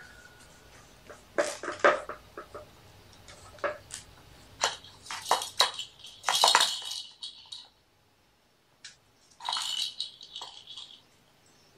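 Irregular light clattering and knocking of small objects, with two longer scratchy, rustling bursts a few seconds apart.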